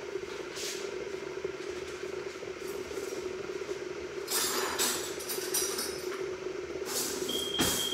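Kitchen utensils rattling and clattering as a teaspoon is fetched, with a brief metallic clink ringing near the end, over a steady background hum.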